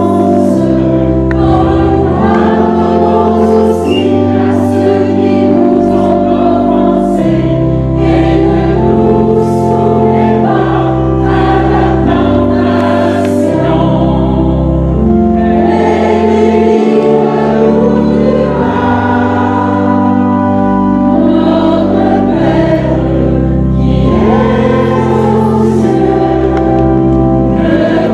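A choir sings a hymn over instrumental accompaniment, its low bass notes held and changing every second or two.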